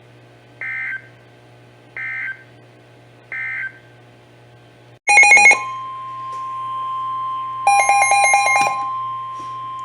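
NOAA Weather Radio Emergency Alert System audio: three short digital end-of-message data bursts about a second and a half apart, closing the previous warning. About five seconds in, a loud buzzing alert burst begins the next warning, followed by the steady 1050 Hz warning alarm tone, with a second loud buzzing burst over it about three seconds later.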